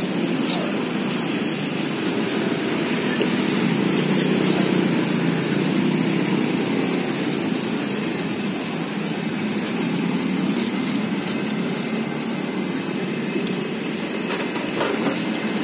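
Steady low rumble of street traffic, cars and motorbikes running past.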